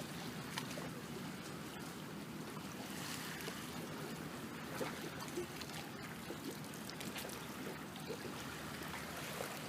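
Water trickling and lapping: a steady wash with small scattered ticks and splashes.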